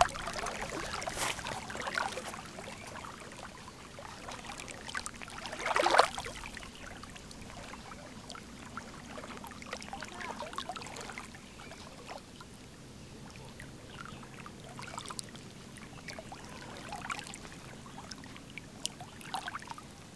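Small lake waves lapping and splashing at the water's edge, with one louder splash about six seconds in.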